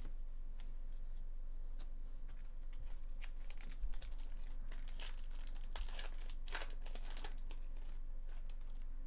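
Trading cards being handled: a foil pack wrapper crinkling and tearing, and card edges clicking and sliding against each other in the hands, busiest in the middle. A steady low hum sits underneath.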